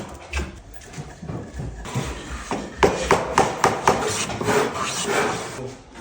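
Hand tools working wood: a few scattered knocks, then a quick run of sharp hammer blows on wood at about four a second, followed by a rougher stretch of scraping or rubbing on the wood.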